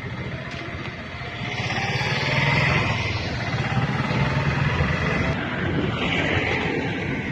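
A motor vehicle passing close by, its engine and tyre noise swelling from about a second and a half in and fading away near the end.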